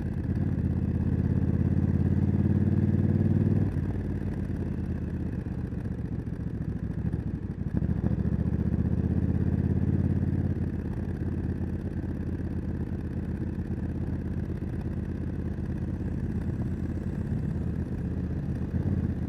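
Honda CRF1100 Africa Twin's 1084 cc parallel-twin engine with a Leo Vince exhaust, heard from the rider's position, pulling under throttle, easing off about four seconds in, pulling again around eight seconds, then running more quietly at light throttle.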